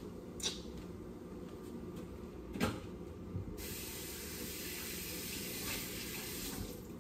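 Two light knocks, then a kitchen tap running in a steady hiss that starts abruptly about three and a half seconds in and stops about three seconds later.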